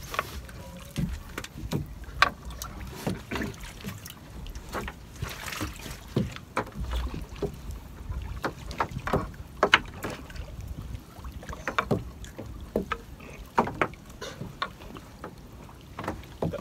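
Fishing net being handled by hand along the side of a small boat: irregular sharp clicks and knocks as the net and hands strike the hull, over a low rumble of wind on the microphone.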